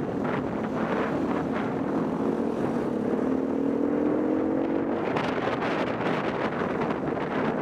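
Motorcycle engine running at speed, its pitch climbing slowly from about two seconds in to about five seconds in, under a steady rush of wind on the microphone.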